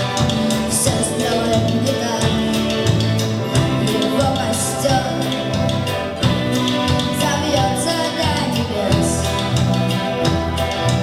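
Song by a vocal-instrumental ensemble (VIA): a full band with a regular drum beat and bass, with singing over it.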